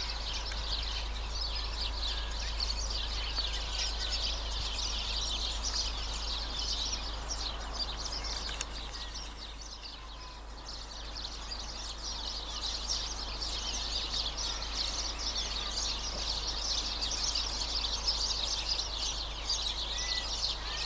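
A dense chorus of birds chirping and twittering, thinning briefly partway through, with one sharp click about eight and a half seconds in.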